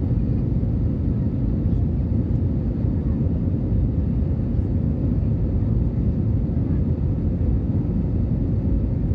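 Steady low rumble of an Airbus A320 jet airliner's engines and airflow, even in level, with a faint steady hum above it.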